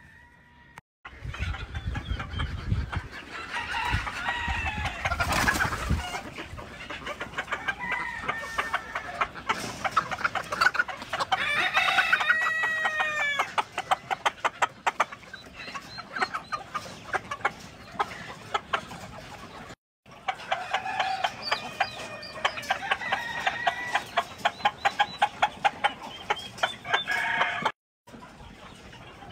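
Hens clucking while pecking rapidly at a handful of fresh azolla held to wire mesh, their beaks making fast clicking taps. A few short rising-and-falling clucks stand out about midway.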